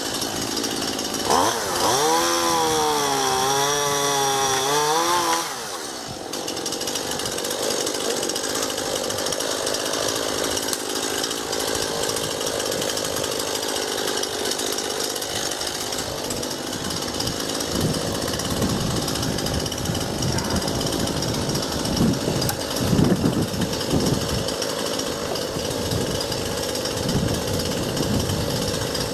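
Chainsaw running at high revs as it cuts into an ash branch, its pitch wavering under load, then dropping off about six seconds in. The saw keeps running at a lower, steadier note, with irregular low thuds in the later part.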